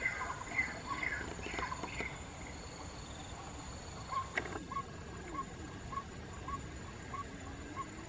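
Birds calling: a quick run of short chirps for the first couple of seconds, then a single short note repeated evenly about twice a second from about halfway through.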